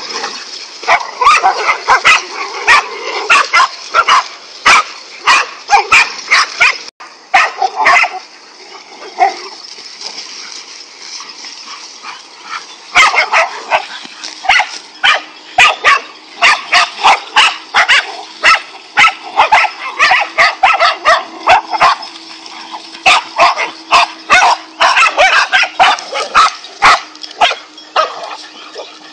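Several dogs barking in rapid, overlapping bursts as they attack a king cobra. The barking thins out briefly about a third of the way through, then picks up again.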